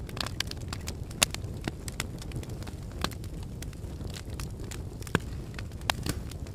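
Wood campfire crackling, with sharp pops scattered irregularly over a low steady rumble; the loudest pops come about a second in and twice near the end.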